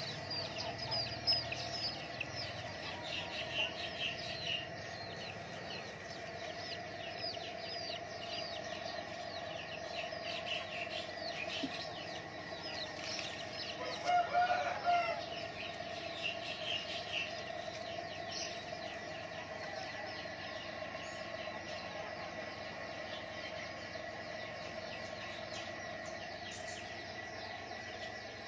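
Small birds chirping over and over in quick, falling notes, with a steady hum underneath. A rooster crows briefly about halfway through.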